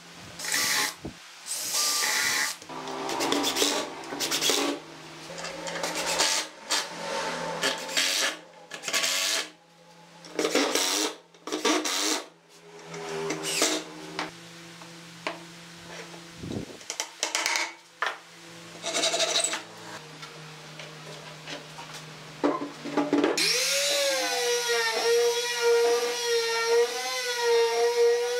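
Cordless drill driving screws into pine in repeated short bursts of varying length. About 23 seconds in, an electric palm sander starts and runs steadily on the wooden tabletop, its pitch wavering slightly.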